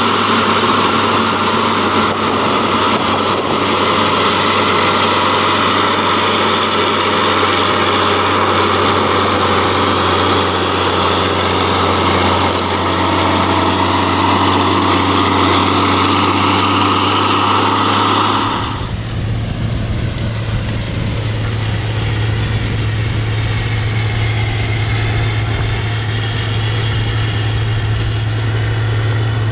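Agcostar 8360 tractor's Cummins 855 diesel engine running steadily under load while pulling a vertical-till tool, a constant low drone. About two-thirds of the way through, the sound abruptly turns duller, losing its high end, while the engine drone carries on.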